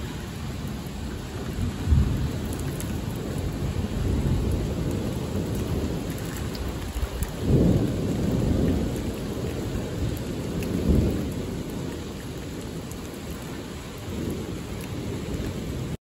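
Heavy rain falling steadily, with low rumbling swells about 2, 7.5 and 11 seconds in.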